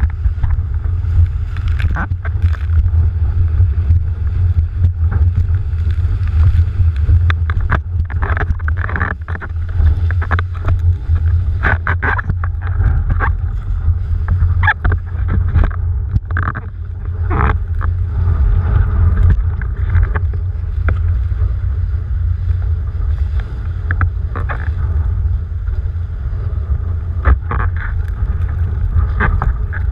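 Wind buffeting a rig-mounted action camera's microphone in a deep, steady rumble as a windsurf board planes over choppy water, with irregular splashes and spray slapping against the board and camera.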